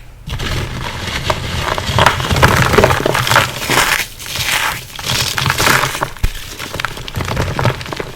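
Reformed gym chalk and cornstarch crunchies being crushed in a bowl: dense crunching and crackling that swells and eases in waves.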